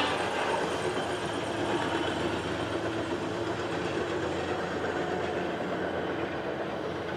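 Hi-rail pickup truck running along the rails, its engine and steel guide wheels making a steady rumble that slowly fades as it moves away.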